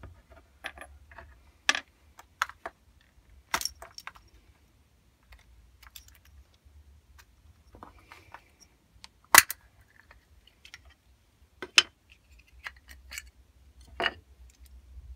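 Scattered clicks, rattles and small knocks of plastic wiring connectors being unplugged and a small plastic electronics box being handled and opened on a wooden workbench, with one sharp knock a little past halfway and another about three-quarters of the way through.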